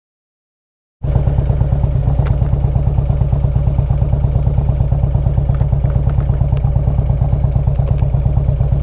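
Harley-Davidson Street Glide's air-cooled V-twin engine idling at a standstill, a steady lumpy pulse that comes in abruptly about a second in.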